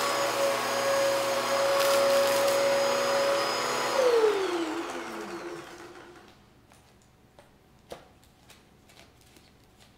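Bissell upright vacuum cleaner running steadily, then switched off about four seconds in, its motor whine falling in pitch as it winds down over about two seconds. A few faint clicks follow.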